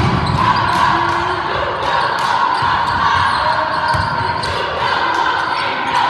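A basketball dribbled on a hardwood gym floor, a few thuds echoing in a large hall, over the steady murmur of spectators' chatter.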